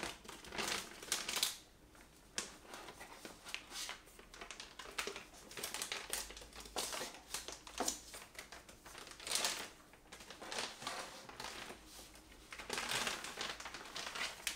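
Motherboard box being opened and its packaging handled: cardboard and plastic crinkling and rustling, with light knocks, at an irregular pace.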